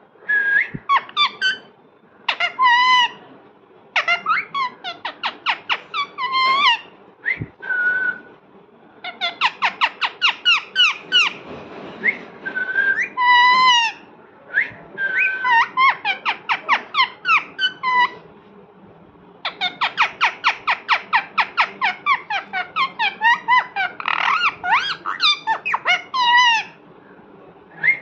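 A parrot calling: runs of short, quick chirps at about five or six a second, broken by longer wavering, whistled squawks.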